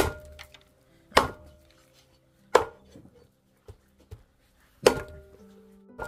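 Heavy cleaver chopping through a pork trotter's bone on a thick wooden chopping block: four hard chops, each a second or more apart, with two light taps between the last two. Faint background music underneath.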